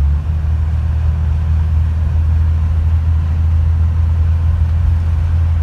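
Steady low drone of a car's engine and tyres, heard from inside the moving car.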